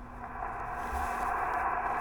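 Receiver hiss from a Yaesu FT-891 transceiver's speaker: 20-metre band noise heard through the narrow SSB filter while listening on an empty frequency. The hiss dips at the start and swells back up over the first half second.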